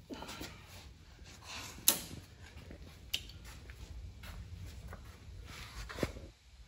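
Scattered clicks and knocks with brief rustling over a faint low rumble. The sharpest click comes about two seconds in, with others about three and six seconds in.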